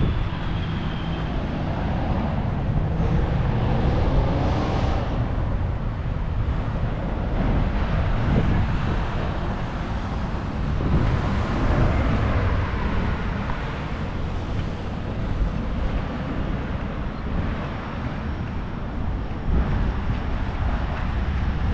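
City street traffic: a steady wash of cars and other vehicles on a busy road, swelling and easing as vehicles pass.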